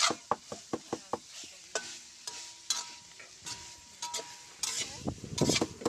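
Metal spatula scraping and knocking against a stainless-steel wok as sliced carrots, bell pepper and meat are sautéed, over a steady sizzle. The strokes come about three a second at first, then unevenly, with the loudest run of scraping near the end.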